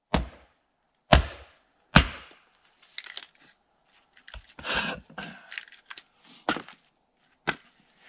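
Axe splitting firewood on a chopping block: three sharp cracks about a second apart, then lighter knocks and clatter of wood, and one more sharp crack near the end.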